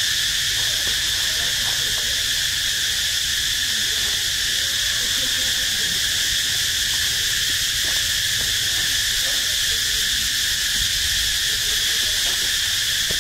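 Steady insect chorus: a constant, shrill, high-pitched drone that never breaks.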